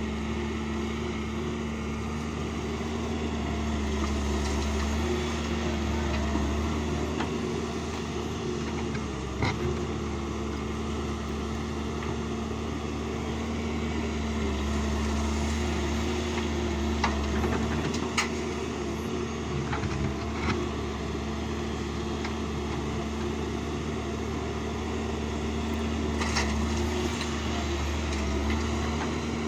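Heavy diesel engine of an excavator running steadily under work, with a low rumble and a steady pitched hum. A few sharp knocks stand out, about a third of the way in, twice a little past halfway, and near the end.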